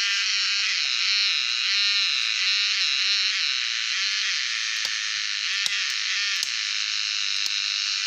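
Cicadas calling in a loud, steady, high buzzing chorus, with four short knocks in the second half.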